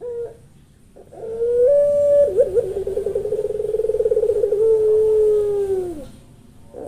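Puter dove (domestic Barbary dove) calling: a short note, then one long coo that rises, breaks into a fast warbling trill and ends on a long held note that slides down.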